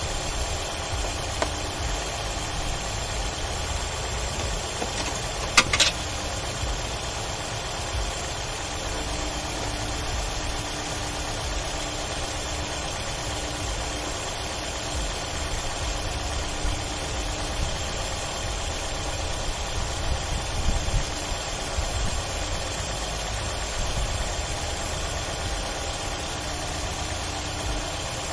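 2003 Toyota Camry engine idling steadily, warming up after a coolant refill so the thermostat opens. A single sharp knock comes about six seconds in.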